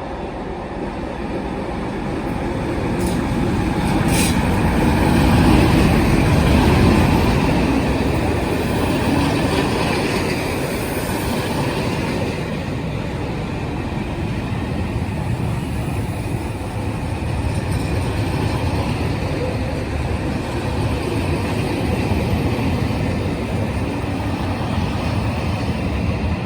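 Diesel-hauled Pullman charter train on the main line, its rumble rising to its loudest about five to seven seconds in, then running on steadily as the train goes by.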